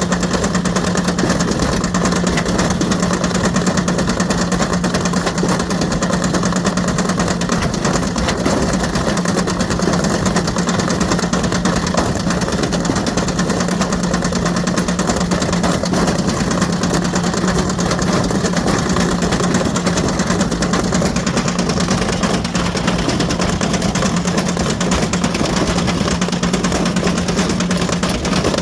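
Ariston Margherita washing machine running with a brick loose in its drum: a steady motor hum under continuous clattering and banging.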